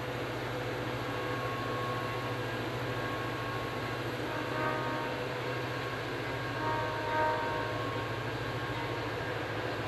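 Diesel commuter locomotive engine running with a steady low hum. Faint, short blasts from a distant train horn come about halfway through and again a couple of seconds later.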